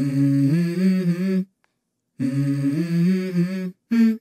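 Background music: a layered hummed vocal passage, held notes that step from one pitch to another, in short phrases cut off sharply into silence twice.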